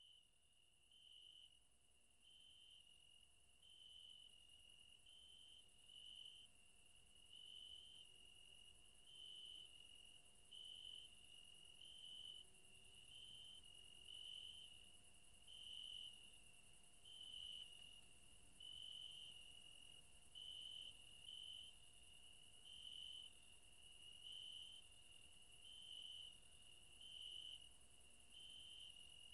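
Faint crickets trilling: a steady high trill that swells louder roughly every second and a half.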